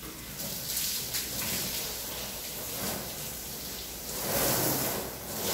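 Water from a garden hose spraying onto a car's body, a steady spatter that grows louder about four seconds in.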